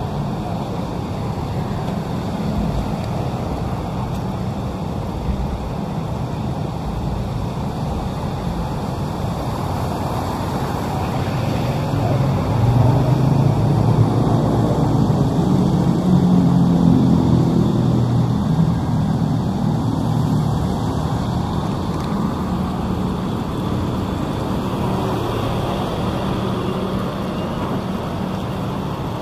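Steady vehicle rumble. It grows louder about twelve seconds in, with a low hum standing out for several seconds, then eases back.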